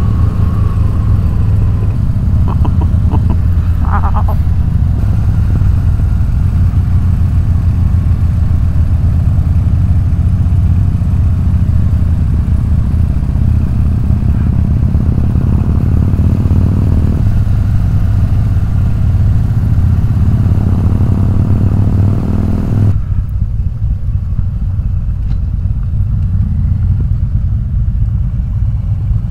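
Harley-Davidson V-twin motorcycle engine running at road speed, heard from the rider's seat, its low pulsing rumble under a rush of wind. About three-quarters of the way through, the wind hiss drops away sharply and the rumble goes on a little quieter.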